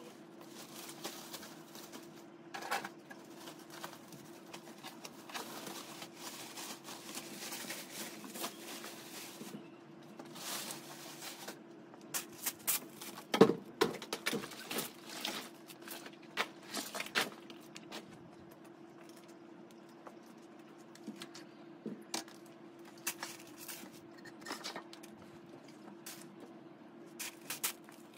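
Handling noises: a fabric motorcycle cover rustling as it is pulled off, then scattered knocks and clatter as bicycle wheels and tyres are shifted, with one sharp knock about halfway through. A steady low hum runs underneath.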